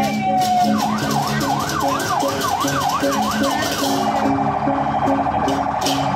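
Electronic siren sounding in cycles: a falling wail, then a fast up-and-down yelp for about three seconds, a steady pulsing tone, and a new rising wail near the end. Underneath are rhythmic music and repeated cymbal clashes.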